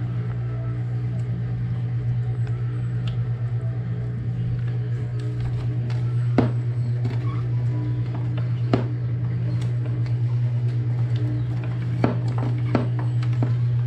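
A steady low hum throughout, with a few sharp clinks of a utensil against a cooking pot as sauce ingredients are mixed in.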